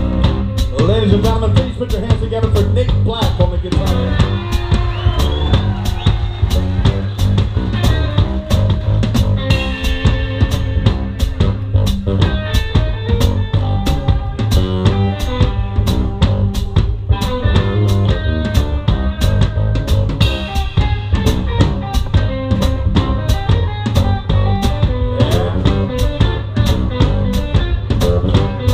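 A live band plays an instrumental stretch of a swing-style cover song. The drum kit is close and loud, with bass drum and snare keeping a steady beat over bass and other instruments.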